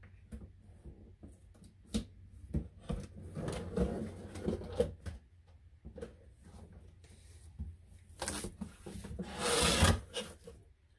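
A cardboard shipping box being handled and cut open: hands rubbing and tapping on the cardboard, with scattered knocks. There is a stretch of scraping about four seconds in and a louder scrape near the end.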